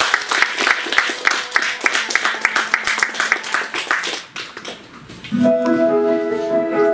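Audience applause that fades out about four seconds in, followed about a second later by piano music with held notes.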